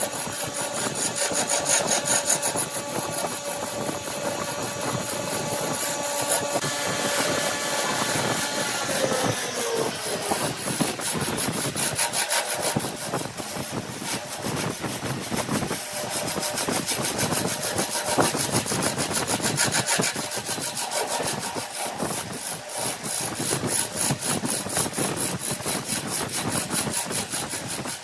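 Wood lathe running while a tool scrapes against the spinning wood, a continuous rasping rub. The motor's hum drops in pitch about a third of the way in, as the lathe slows.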